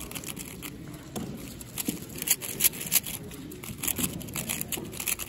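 A 4x4 speedcube being turned fast: a quick, irregular run of plastic clicks and clacks as the layers snap round.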